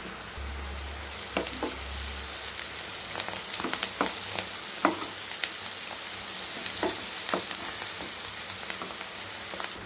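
Chopped onions, green chillies and curry leaves sizzling in hot oil in a non-stick pan, with a steel ladle scraping and clicking against the pan as they are stirred.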